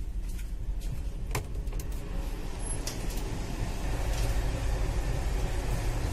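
Allahabad Duronto Express passenger coach running on the track, heard from inside near the vestibule doors: a steady low rumble and rattle with a few sharp clicks, growing louder a few seconds in.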